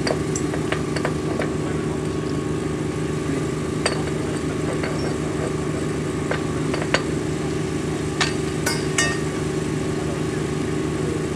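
A small engine running steadily, with a handful of sharp metallic clinks of hand tools striking steel rail and clamps, during work on a freshly thermite-welded rail joint.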